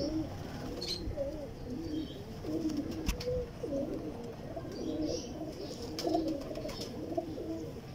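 Domestic pigeons in a loft cooing, with several low, wavering coos overlapping continuously. A few faint clicks come through along with them.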